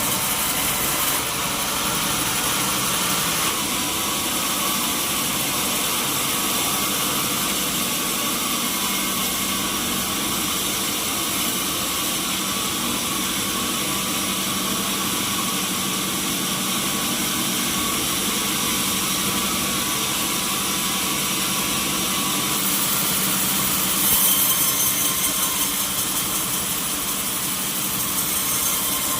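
Sawmill machinery running steadily, a continuous engine-like drone with a hissing top. About 24 seconds in it grows louder for a moment, then settles back.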